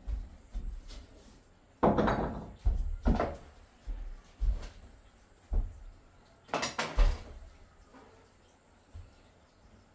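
A series of irregular knocks, bumps and clatters, like objects being handled and set down or a cupboard or door being moved. The loudest comes about seven seconds in.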